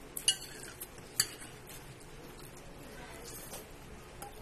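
Metal spoon clicking against a ceramic bowl during eating: a few sharp clinks in the first second or so, the loudest about a second in.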